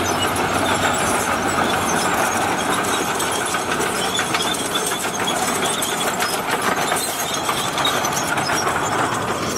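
Komatsu D65PX crawler bulldozer's diesel engine working steadily under load as the blade pushes soil, with the steel tracks clanking as it crawls.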